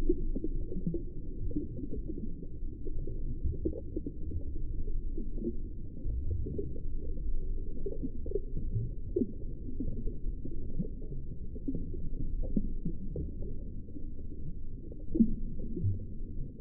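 Muffled underwater sound: a low rumble with irregular soft knocks and thumps, everything above the lowest tones cut off.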